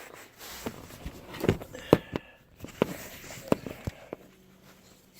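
Several sharp clicks and knocks at irregular intervals, with a faint steady hum coming in near the end.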